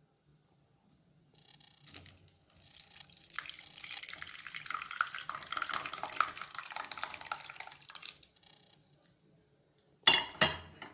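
Curdled milk and whey being poured through a strainer, the liquid splashing and trickling for about five seconds. A few sharp knocks near the end.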